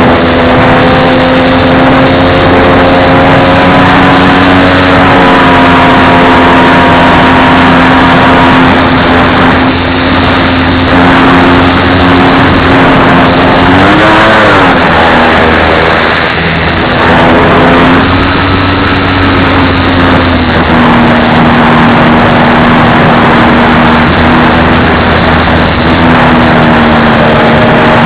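Radio-controlled model plane's motor and propeller droning loudly at a steady pitch over a noisy rush. The pitch shifts now and then with the throttle, dipping and rising about fourteen seconds in.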